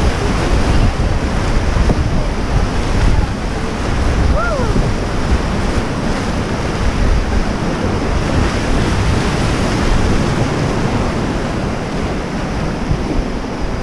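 River whitewater rushing loudly around an inflatable raft, with wind buffeting the microphone.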